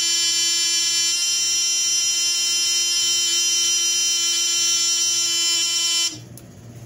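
Simplex 4002 fire alarm panel's trouble buzzer giving a loud, steady buzz. It signals a signal-circuit trouble caused by the horn strobe wire just disconnected. The buzz cuts off suddenly about six seconds in, when the panel's silence button is pressed.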